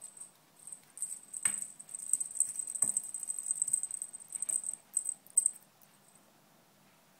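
A small cat toy rattling in quick high shakes as it is batted and swung, with two dull thumps a second and a half in and again about a second later; the rattling stops a little before the end.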